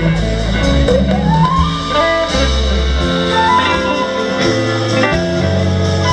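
Live blues-rock band playing: electric guitar lead over bass and drums, the lead line sliding up in pitch about a second in.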